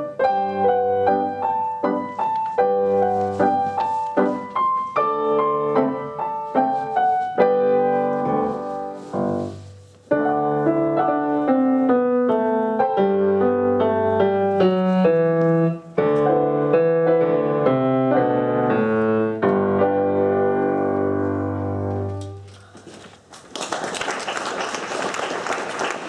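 Grand piano played four hands as a duet, with a brief break about ten seconds in and a descending bass line after it. The piece ends on a held chord that fades, and applause follows near the end.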